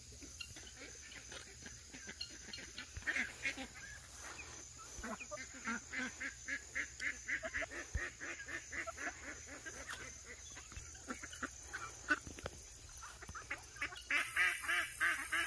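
Domestic ducks quacking in a long run of short calls, several a second. Near the end a steady hiss comes in.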